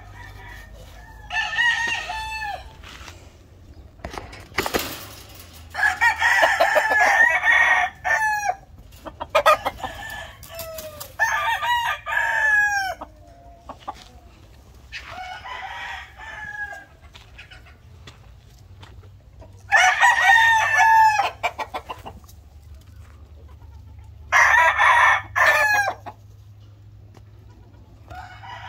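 Several penned gamefowl roosters of the Yellow Leg and Sweater lines crowing in turn, about eight crows in all, some long and some overlapping one another.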